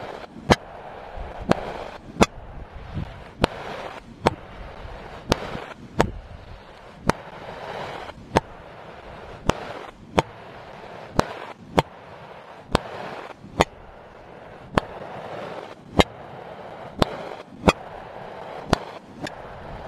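Fireworks going off in a steady series, with sharp bangs slightly more than once a second and a crackling hiss between them.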